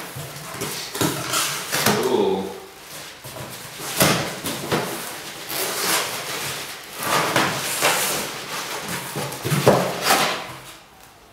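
A large cardboard shipping box being opened by hand: irregular scraping and rustling of the cardboard flaps being pulled back, with foam packing peanuts rustling, and a few sharper knocks.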